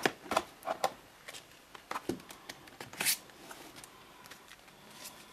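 Hands handling paper cards and booklets in a cardboard box: a string of short rustles and taps, the loudest about three seconds in, growing sparser toward the end.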